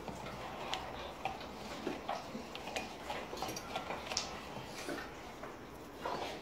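Irregular light clicks and ticks from Doberman dogs moving about and eating on a tiled floor around their steel food bowls.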